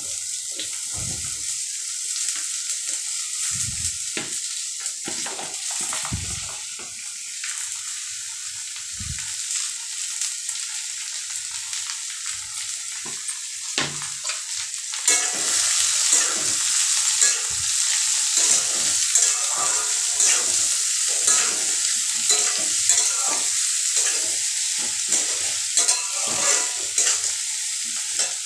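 Diced bottle gourd frying in a steel kadhai: a steady sizzle, with a metal spatula scraping and knocking against the pan as the pieces are stirred. The stirring grows louder and busier about halfway through.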